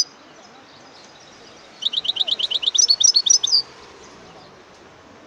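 European goldfinch singing: a short high note at the start, then about two seconds in, a fast run of repeated high notes lasting nearly two seconds that ends in a twittering flourish.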